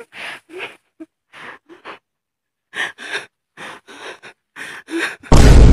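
A man breathing in short, quick gasps, about a dozen separate puffs of breath. Near the end, a very loud, rumbling burst of noise drowns everything out.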